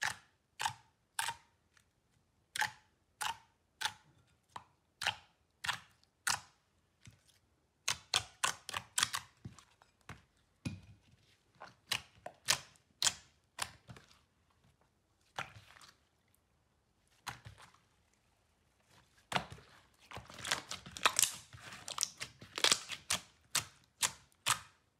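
Glossy metallic slime being pressed and kneaded by hand, with trapped air popping in sharp clicks. The pops come at a slow, even pace at first, then in quick, dense clusters.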